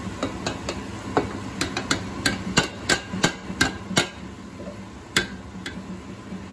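Sharp metallic knocks on a stainless steel saucepan as cooked lentils are tipped and knocked out of it into a pan. The knocks ring briefly and come in a quick run, most of them bunched together in the middle, over a steady low hum.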